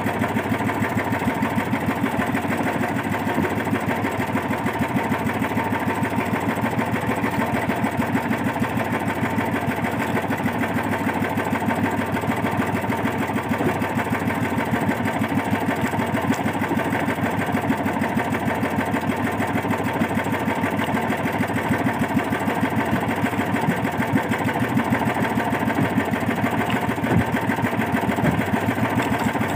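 Small inboard engine of a motorized outrigger fishing boat (banca) running steadily under way, an even, fast chugging with no change in speed.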